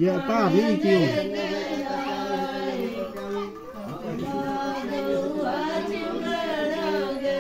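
Several voices chanting together without instruments, holding long notes, with a dip in loudness about halfway through.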